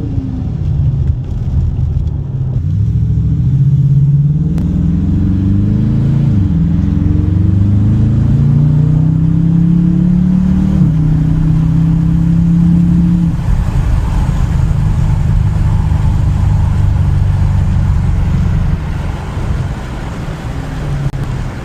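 Dodge Challenger R/T's 5.7-litre HEMI V8, breathing through a K&N drop-in air filter, revving up: its note climbs, drops sharply, climbs again, drops sharply about halfway through, then holds steady and eases off near the end.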